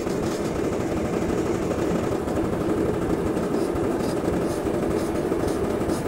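Steady engine noise, even in level, with no distinct knocks or clicks.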